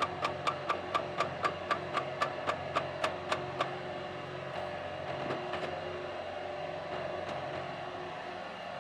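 A steady mechanical hum, with a run of sharp, evenly spaced clicks or taps, about four a second, that stops about three and a half seconds in.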